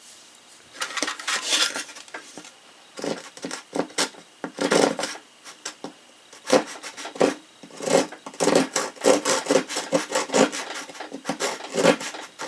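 Small folding saw blade of a stainless-steel multi-tool sawing back and forth in short, irregular rasping strokes, starting about a second in.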